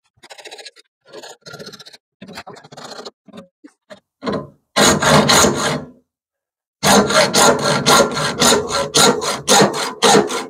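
Hand hacksaw cutting through the brass shell of a rubber-lined cutlass bearing held in a lathe, stroke by stroke. The strokes start light and spaced, then turn loud. After a short silent break just past the middle they run fast and even, about three a second.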